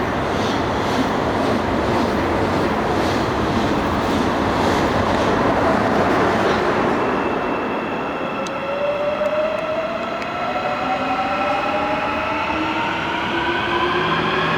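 Electric train passing with a steady rush and regular clicks of the wheels over rail joints. From about halfway, the electric train's traction motors whine in several tones that climb steadily in pitch as it accelerates.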